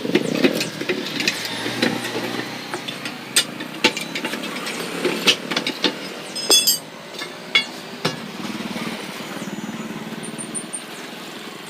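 A motor runs under irregular sharp knocks and metallic clicks of hand-tool work on a truck tyre, with a brief ringing clatter of metal about two-thirds of the way through.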